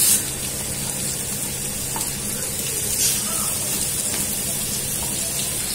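Chopped onions sizzling in hot mustard oil in a pan: a steady frying hiss, briefly louder at the start as they go in.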